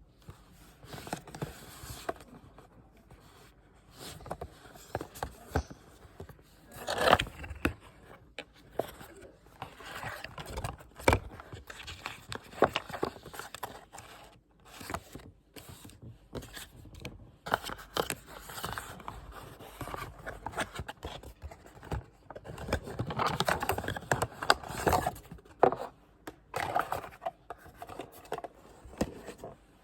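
Watch packaging being handled and opened: irregular scraping, rustling and sharp clicks as a box and its wrappings are pulled apart, with the loudest bursts about seven seconds in and again past twenty seconds.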